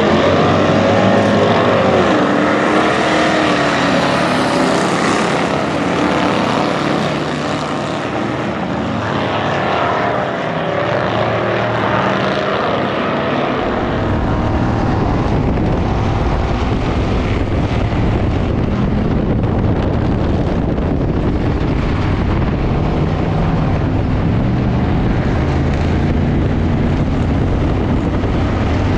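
A pack of Ford Crown Victoria stock cars racing on a dirt track, several V8 engines revving up and down over each other. About 13 seconds in, the sound changes to one Crown Vic's V8 heard from inside its caged cabin: a heavy, steady engine drone mixed with wind noise.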